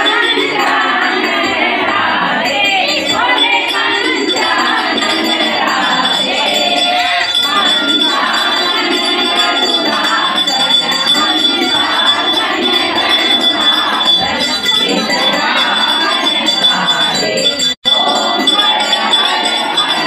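Women singing a devotional puja song together, with a small hand bell ringing steadily over the voices. The sound drops out for an instant near the end.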